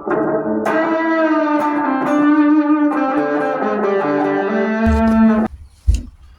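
Electric guitar played through a compressor pedal: a chord about half a second in, then sustained notes ringing out, stopping about five and a half seconds in. A single thump follows shortly after.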